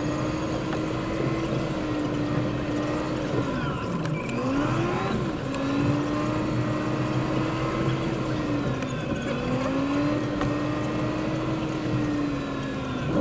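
Car engine and road noise heard from inside the car, played back fast. The engine note holds steady, dips and climbs back about four seconds in, and dips again near nine seconds as the car slows and pulls away.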